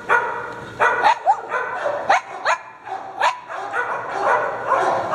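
Dogs barking in short, sharp barks, about one every half second at first, then coming faster and overlapping in the second half, with a few high rising yips mixed in.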